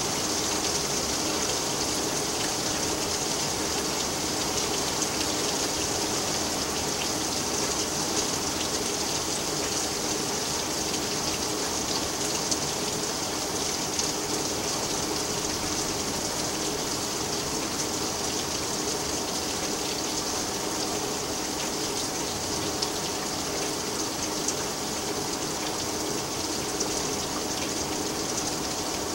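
Steady, hard rain falling and running off during a severe thunderstorm, an even hiss with scattered drop ticks. A faint low hum sits underneath.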